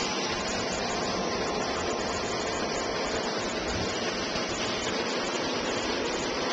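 Pentair WhisperFlow 1.5-horsepower single-speed pool pump running: a steady, pretty noisy rush of motor and water with a faint steady hum.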